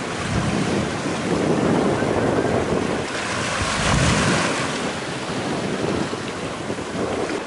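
Wind buffeting the microphone over the rush and splash of a choppy sea, swelling louder twice in gusts.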